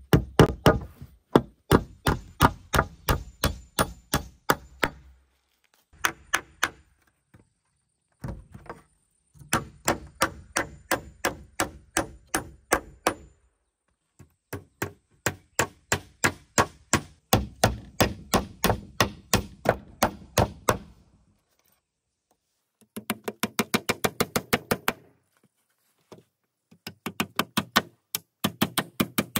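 A hammer driving nails through wooden planks into a post, struck in quick runs of about four or five blows a second, with short pauses between runs.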